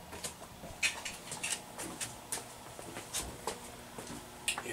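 Faint, scattered clicks and rustles of small household items being handled and shifted on shelves.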